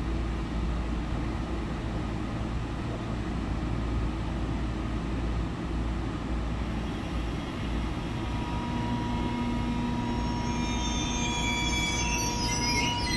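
ICE 3 (DB Class 403) electric train standing at a platform in a large echoing station hall, with a steady low hum. About two-thirds of the way in, steady high tones join the hum, and near the end shrill chirping sounds come in on top.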